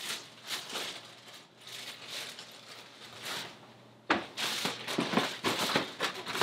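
Plastic bread bag crinkling and rustling as a slice of bread is taken out, in irregular bursts that get busier and louder about four seconds in.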